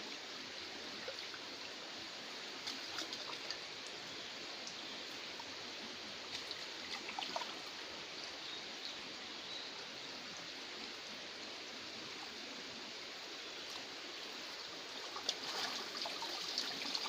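River water running steadily over a shallow bed, with a few faint clicks scattered through it.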